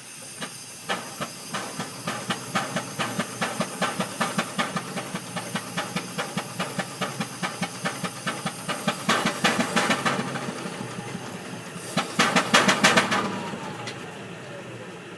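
Steam engine running fast, its exhaust chuffing in a quick, even beat over hissing steam. The chuffs grow louder about nine seconds in, are loudest near the end, then fade.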